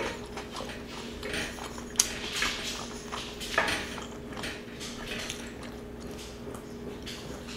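Metal fork clinking and scraping against an electric griddle pan as food is picked up, with a sharp tap about two seconds in and another about three and a half seconds in, then softer mouth sounds of chewing. A faint steady hum runs underneath.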